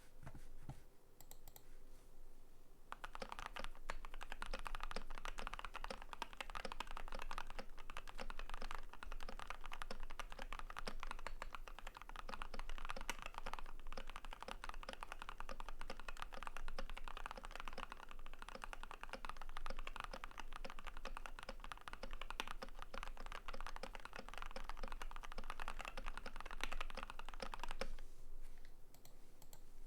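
Continuous typing on a Keychron Q1 custom mechanical keyboard with lubed Vertex V1 switches, a steel plate and PBT keycaps, a dense run of keystrokes. A few scattered key clicks come first, the steady typing starts about three seconds in and thins out near the end.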